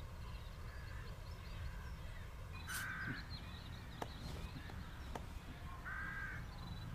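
A crow cawing twice: a short harsh caw about three seconds in and another near the end. Beneath it runs a low steady rumble, with a few faint chirps and light clicks.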